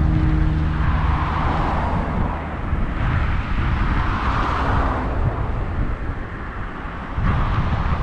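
Road traffic noise from passing vehicles, swelling and fading about three times, over a low wind rumble on the microphone.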